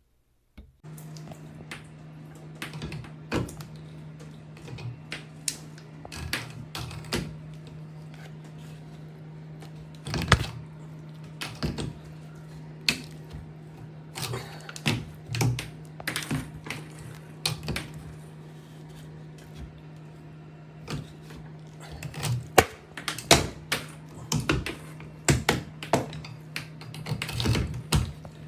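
Irregular sharp clicks and taps of hard parts being handled, over a steady low hum that starts about a second in.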